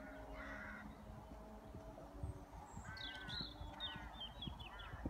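Crows cawing, one harsh call about half a second in and three more in quick succession in the second half. A smaller bird gives a run of quick falling chirps near the end.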